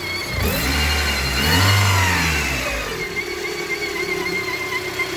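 VAZ-2110 16-valve engine, hot, idling with a steady high-pitched whistle; about half a second in it is revved once, its pitch rising and falling back to idle by about three seconds. The whistle persists with the alternator belt removed, and the owner does not know its source.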